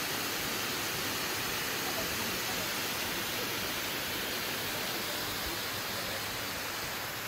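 Water pouring over a low dam spillway into the creek below: a steady, even rush of falling water.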